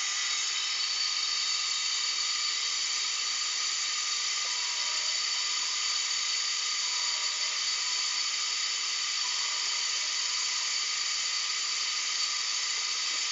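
Steady hiss of compressed air escaping from a rotary air-bearing test bed, with high whining tones held steady over it.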